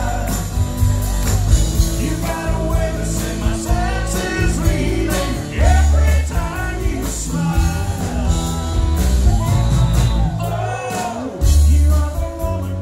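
Soft-rock band playing live through a PA: strummed acoustic guitars, electric guitar, bass and drums, with a sung melody over the top.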